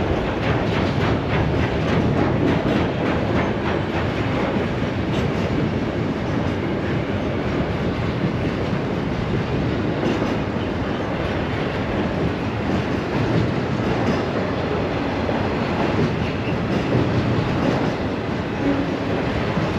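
Freight train cars rolling past, a steady rumble with the wheels clicking over the rail joints.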